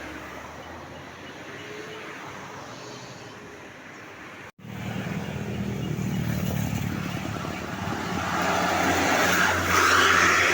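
Tour bus engines and road noise as buses pass. The sound is steadier and quieter at first, breaks off abruptly about halfway, then returns as a louder engine hum that swells to its loudest near the end as a bus passes close.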